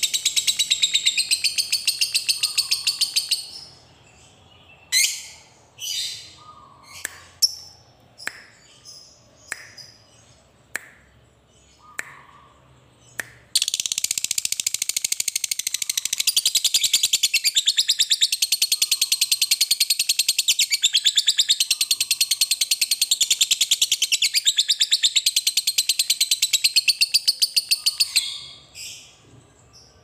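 Fischer's lovebird giving its long 'ngekek' chatter, a very fast, high rattling trill. The first run breaks off after a few seconds into single sharp chirps about once a second. About midway the trill starts again and runs unbroken for some fifteen seconds before ending in a few more chirps.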